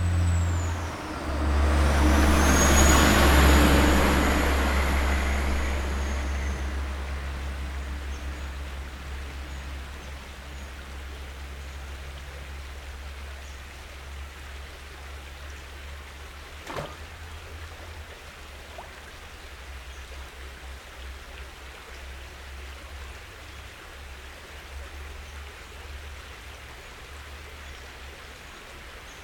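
A passing motor vehicle, loudest about three seconds in and then fading over several seconds, over a steady low rumble. A single sharp click comes about two-thirds of the way through.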